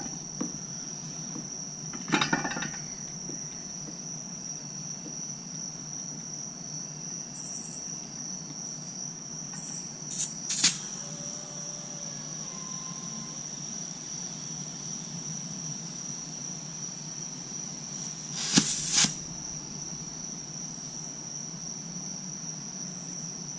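Short hissing bursts of compressed air from an air chuck inflating a dirt bike tyre's inner tube, a few of them, the longest about three-quarters of the way through. Under them runs a steady high-pitched cricket trill.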